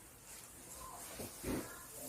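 Quiet room tone with faint handling noise and one soft knock about one and a half seconds in.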